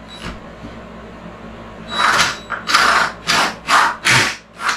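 Cordless drill boring a hole through a cedar wall. After a quieter opening stretch, about two seconds in it runs in a string of short bursts, two or three a second.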